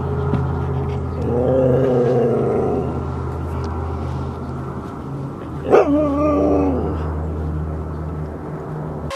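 A Siberian husky vocalizes twice in its greeting 'talk'. The first is a drawn-out, wavering call about a second in; the second starts sharply around six seconds in and lasts about a second.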